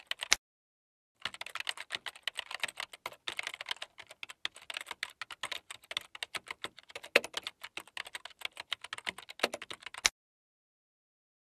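Typing sound effect: a fast, dense run of keystroke clicks that pauses for under a second near the start and stops abruptly about ten seconds in.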